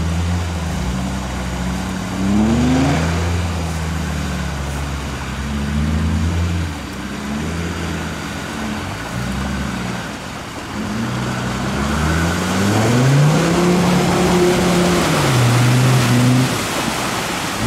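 Land Rover Discovery Td5's five-cylinder turbodiesel revving up and falling back again and again as it drives through deep mud. Its big mud-terrain tyres churn and throw mud and water, louder in the second half.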